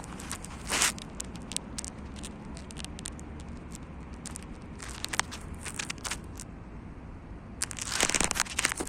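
Scattered short clicks and rustling, with a louder noisy stretch near the end, over a steady low outdoor rumble.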